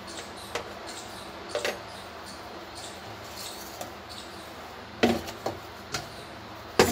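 Kitchen utensils being handled: a handful of light clinks and knocks from a plate, a spoon and a steel mixer-grinder jar being moved, with the sharpest knock just before the end.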